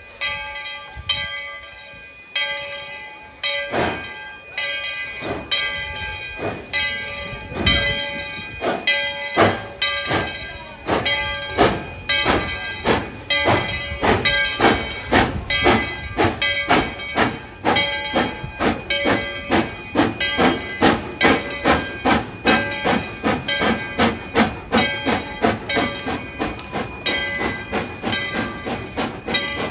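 Tweetsie Railroad No. 12, a coal-fired 1917 Baldwin 4-6-0 narrow-gauge steam locomotive, pulling away with its train: exhaust chuffs start about one a second and quicken steadily to two or three a second as it gathers speed. Steady ringing tones come and go over the chuffing.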